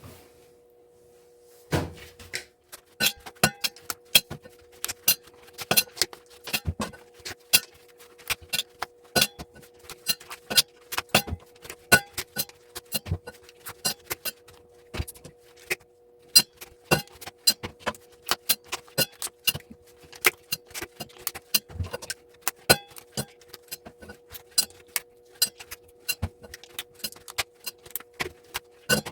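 Hand tools clicking and clinking against plugs as softened plastic plug casings are pried apart for their brass pins: irregular sharp clicks, several a second, starting about two seconds in. A steady faint hum runs underneath.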